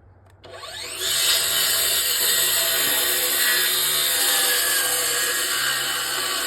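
Electric circular saw spinning up about half a second in, then running steadily as it cuts across a 2x10 board.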